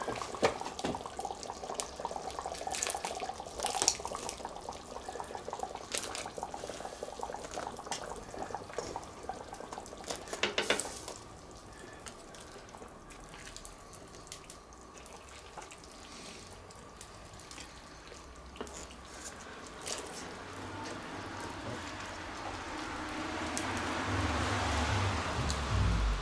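Kidney beans being tipped and scraped from a stainless steel bowl into thick, simmering chili in a cast-iron Dutch oven, with clinks of metal on the bowl, and a wooden spoon stirring the wet mixture. The sloshing grows louder near the end.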